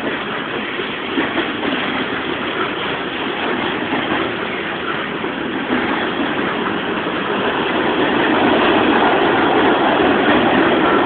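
Freight train cars rolling past close by: a steady rumble and rattle of steel wheels on the rails, growing louder from about six to eight seconds in.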